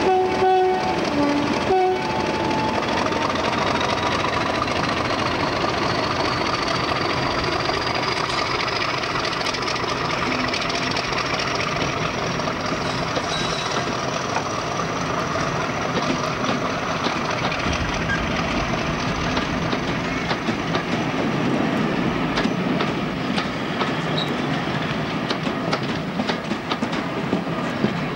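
BR blue mainline diesel-electric locomotive sounding short notes on its horn, then working hard as it pulls away, its engine note and whine rising slowly in pitch over several seconds. In the second half the coaches roll past with a steady clicking of wheels over the rail joints.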